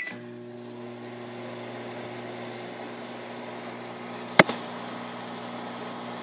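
Microwave oven running, a steady electrical hum with fan noise, with one sharp click about four seconds in.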